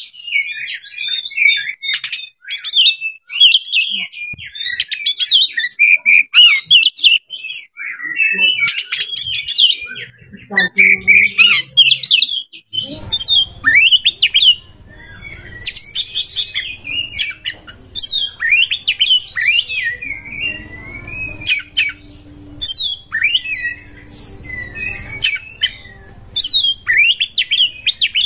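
Oriental magpie-robin (kacer) singing a fast, varied song of whistles, trills and sharp clicking notes almost without pause, its phrases packed with mimicked calls of other birds. A faint low hum sits underneath in the second half.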